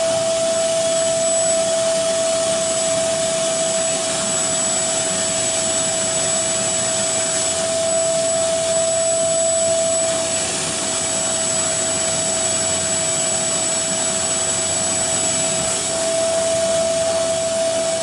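Portable carpet spot cleaner running, its suction pulling through the hand tool held against the carpet. It makes a steady rushing sound with a steady whine that grows stronger about eight seconds in and again near the end.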